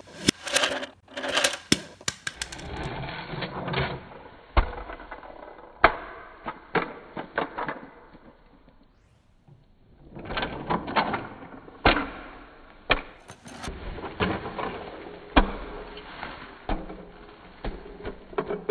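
Irregular plastic clicking and clattering of a toy bus garage being worked by hand: its spring doors are pressed and snap, and small toy cars are moved about. There is a short lull about halfway through.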